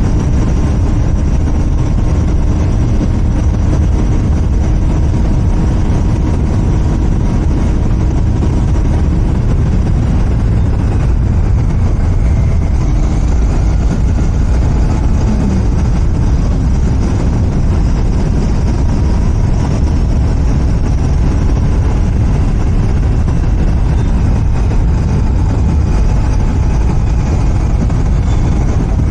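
Royal Enfield Continental GT 650 parallel-twin on its stock exhaust running steadily while riding, with a strong low rumble and a fairly constant engine note that drifts only slightly in pitch.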